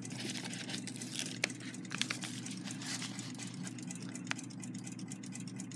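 Light handling of small clock parts and paper parts packets in a cardboard box: a few faint clicks and rustles over a steady low hum.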